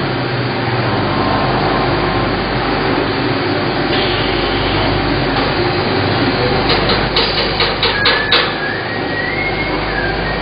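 Steady machine-shop din with a quick run of sharp metallic knocks, about eight of them, between roughly six and a half and eight and a half seconds in. A faint rising whine follows near the end.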